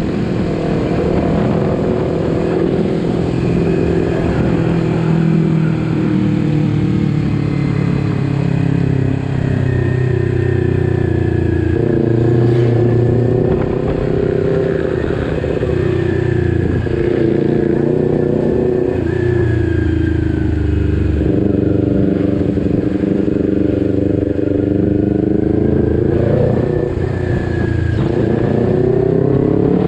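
Kawasaki Ninja 250 Fi's parallel-twin engine running under way, its note rising and falling with the throttle, with a couple of sudden drops and jumps in pitch as the rider changes gear.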